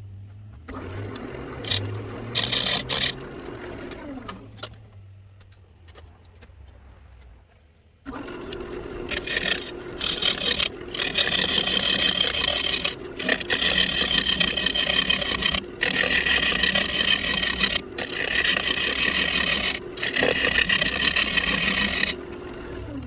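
Wood lathe spinning a walnut blank, with a few short touches of a turning tool at first. About a third of the way in, the tool starts cutting steadily into the wood with a loud hiss, in long passes broken by brief pauses.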